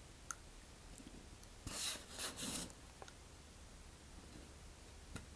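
Hobby knife blade scoring a thin vacuum-formed plastic fairing: three short cutting strokes in quick succession about two seconds in, with a few faint ticks around them.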